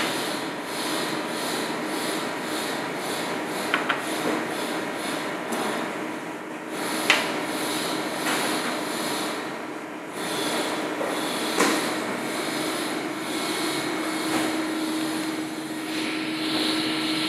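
Small metal spatula scraping and rubbing across a plate as a paste is spread, with a few sharp clicks of the utensil against it, over a steady hum of kitchen machinery. A low droning tone in the hum grows stronger near the end.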